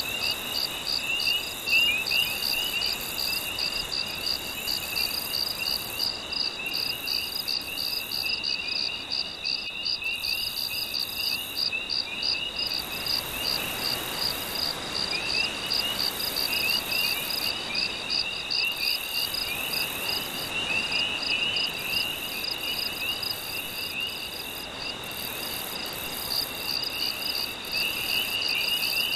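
A night insect chorus of crickets chirping in a rapid, even pulse, with a second trilling insect and a higher buzz that switches on and off. Under it runs a soft wash of gentle sea waves that swells now and then.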